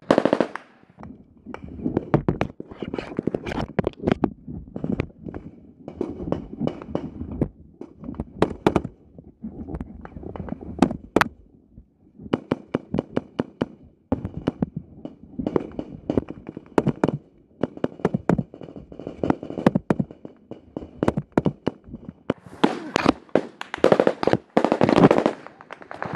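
Gunfire in a firefight: many sharp shots, some single and some in quick strings, densest near the end, with rustling of movement between them.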